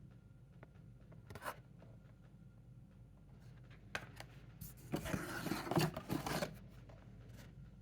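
Hands handling the packaging of a case of die-cast toy cars: a short rustle, a few sharp clicks, then about a second and a half of scraping and rustling.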